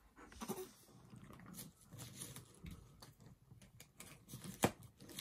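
Long-haired cat biting and tugging at the ribbon bow on a wrapped present: faint rustling and crinkling of wrapping paper with scattered small clicks, the sharpest near the end.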